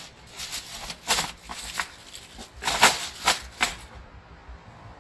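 Aluminium foil crinkling in a series of short rustling strokes as hands press and smooth it into a disposable aluminium pan. The loudest stroke comes about three seconds in, and the crinkling stops a second before the end.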